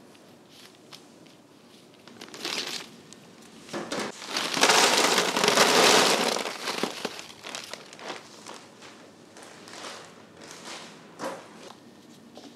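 Plastic crinkling as a batch of small filling pieces is tipped out into a plastic-lined tray. It is loudest for about two seconds in the middle, with shorter rustles of plastic before and after.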